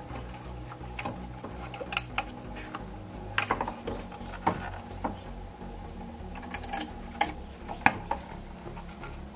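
Plastic intake manifold being worked loose and lifted off a Hyundai Elantra engine: irregular clicks and knocks of plastic against metal and hoses, the sharpest about two seconds in and near the end.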